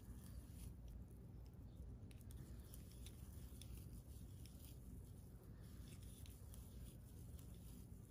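Near silence: a low room hum with faint, scattered ticks and rustles from a crochet hook working textured scrubby yarn into double crochets.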